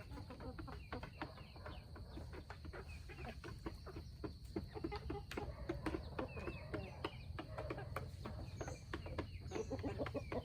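Chickens clucking and chirping, with many quick, sharp ticks scattered throughout.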